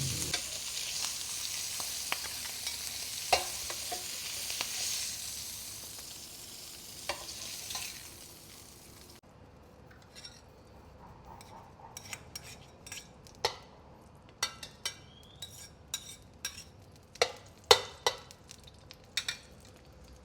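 Food sizzling in hot oil in a pan, the sizzle fading over the first half. After that it is much quieter, with a spatula scraping and knocking against the pan in short separate strokes, the loudest ones near the end.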